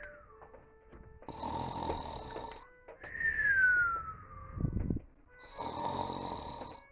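Cartoon-style snoring: a long raspy in-breath, then a whistling out-breath that falls in pitch and ends in a short low rumble, the cycle repeating about every four seconds.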